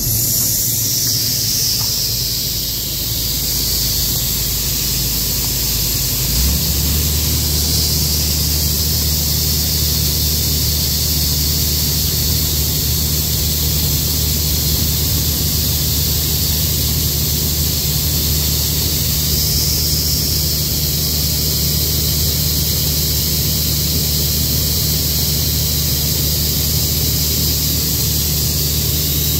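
Combine harvester running, heard from inside the cab: a steady low engine hum under a strong, even hiss of air. The engine note changes about six and a half seconds in.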